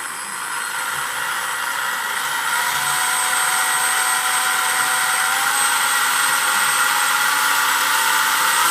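Carrera Digital 1/32 slot car's small electric motor running with a steady high whine, its pitch stepping up a little and growing slowly louder.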